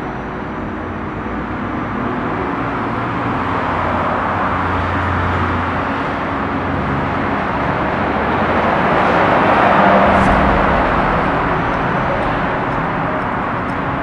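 Road traffic noise, a steady rush that swells to its loudest about ten seconds in, as of a vehicle passing, then eases off.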